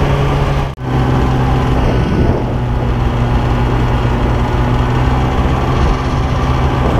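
Snowmobile engine running steadily under way, heard from the rider's own machine, a loud even drone. A short dropout breaks it about a second in.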